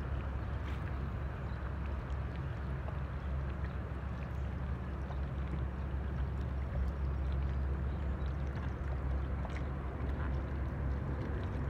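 Steady low hum of a boat motor over a constant wash of water noise, with a few faint ticks.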